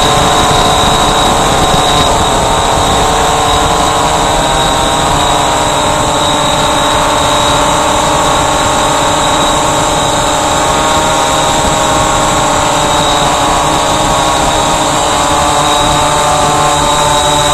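Walkera Voyager 3 quadcopter hovering, its brushless motors and propellers making a steady multi-toned whine that drifts slightly in pitch, with a constant high tone above it, picked up close by the aircraft's own camera.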